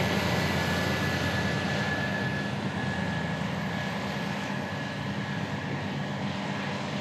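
Tractor engine running steadily as the tractor and its grain trailer drive past, with a thin high whine over the engine note; the sound eases off slowly as it moves away.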